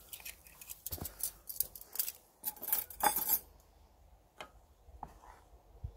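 Cutlery clinking and clattering as knives and forks are set down on the wooden stump beside the enamel plates. There is a rapid run of clinks for about the first three and a half seconds, then a few sparse clicks.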